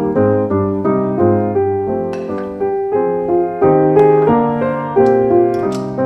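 Background piano music: a gentle run of single notes and chords over repeated low notes.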